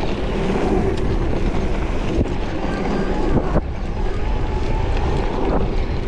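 Wind buffeting the microphone over the rumble and rattle of an electric mountain bike ridden fast on a dirt trail, with two sharp knocks from the bike about two and three and a half seconds in.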